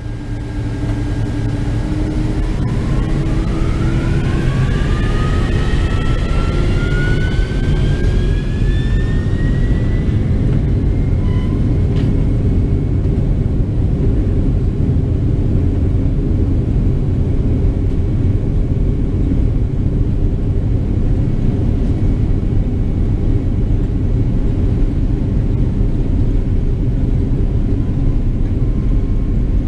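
Boeing 767's jet engines spooling up to takeoff thrust, heard from the cabin. A whine rises in pitch over the first ten seconds or so above a loud, swelling rumble, then settles into a steady loud rumble of engines and runway as the jet accelerates on its takeoff roll.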